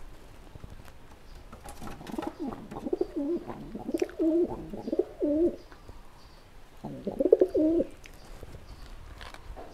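A dove cooing nearby in two bouts of wavering, repeated coos: a longer run from about two seconds in, then a shorter one about seven seconds in.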